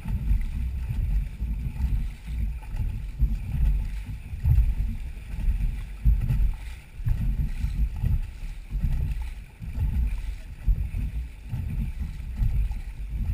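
Dragon boat moving under paddle: water along the hull and wind buffeting the microphone make an uneven low rumble that rises and falls.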